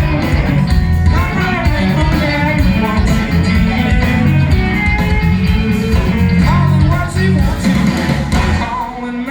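Live band playing blues rock: electric guitar lead with bends over bass and drums, with some singing.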